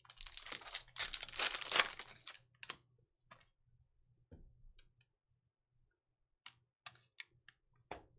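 Foil wrapper of a Panini Prizm trading-card pack torn open by hand, crinkling for about three seconds. Near the end come a few light clicks as the cards are pulled out and handled.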